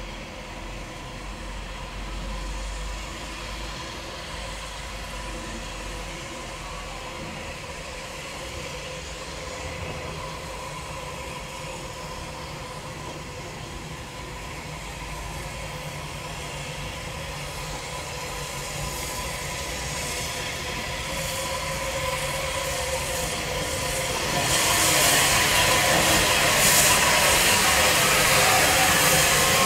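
Bulleid West Country class steam locomotive 34092 'City of Wells' running slowly towards the listener with its train, its steam and running noise slowly growing louder. About three-quarters of the way through it turns suddenly into a loud, steady hiss of steam.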